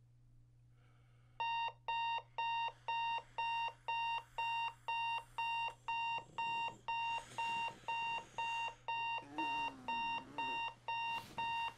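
Bedside digital alarm clock going off: a steady electronic beep repeating about twice a second, starting about a second and a half in.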